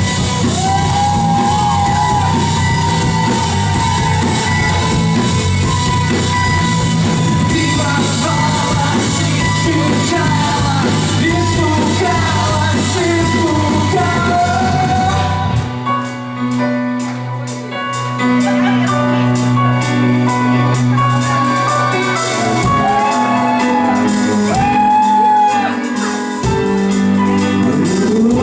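Rock band playing live with a singer, in a large hall. About halfway through, the heavy low end drops away and a fast, even ticking on the drums carries on under the vocals.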